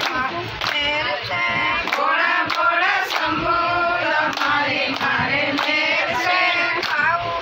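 Group of women singing a Hindu devotional bhajan in unison, clapping their hands on a steady beat, a little under two claps a second.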